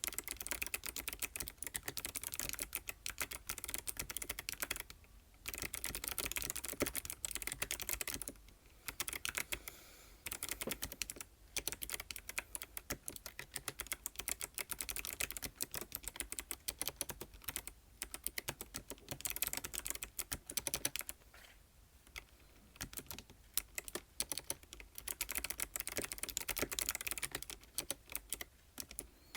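ABKO ADK05 mechanical keyboard with white switches being typed on: a fast, continuous stream of key clicks, broken by a few short pauses.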